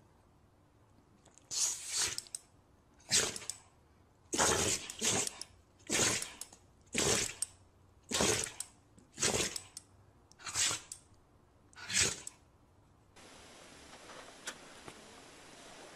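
A small dog sneezing about ten times in a row, roughly once a second, each a short sharp burst. A few seconds before the end it stops, and a steady faint hiss with a single click follows.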